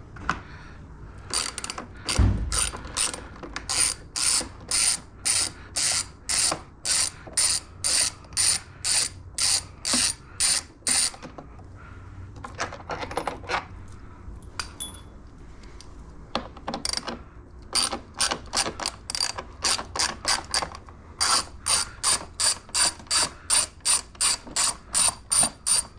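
Small hand ratchet with an extension clicking steadily, about three clicks a second, as bolts are backed out. The clicking runs in two long spells with a sparser pause in the middle, and there is a low thump about two seconds in.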